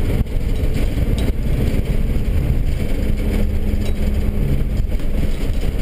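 Engine and road noise inside the rear compartment of a moving police tactical vehicle: a loud, steady low rumble, with a steady hum joining about three seconds in.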